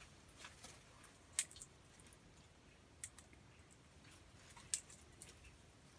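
A king parrot feeding, its beak making a handful of faint, sharp clicks and cracks on the food, spread out over a few seconds; the loudest comes about a second and a half in.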